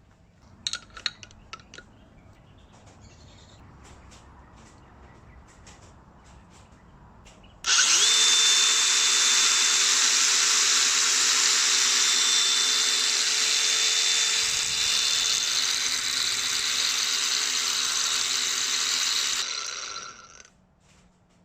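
A few light clicks of handling, then an electric angle grinder switches on abruptly and runs loudly and steadily at full speed with no load, with a high whine. After about twelve seconds it is switched off and winds down to a stop.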